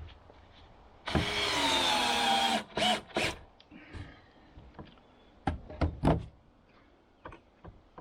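Power drill running for about a second and a half, its pitch sinking a little as it loads, then two short bursts of the trigger, followed by several sharp knocks on wood.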